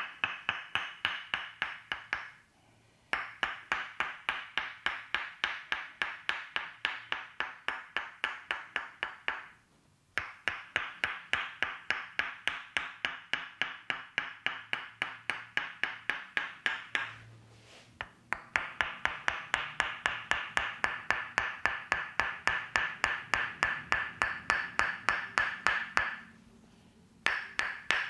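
Tok Sen massage tapping: a wooden mallet strikes a wooden wedge held against the shoulder in rapid, evenly spaced, ringing knocks. The knocks come in runs of several seconds, broken by brief pauses.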